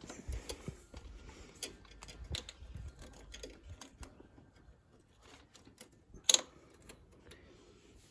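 Light clicks and rattles of small metal rear-brake parts being handled on a Honda TRX350 ATV, with one sharp metallic click about six seconds in.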